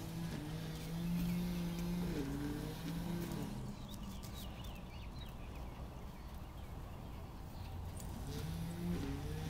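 A low motor hum that wavers slightly in pitch fades out about three and a half seconds in and comes back near the end. Faint high chirps and light clicks sound in the quieter middle.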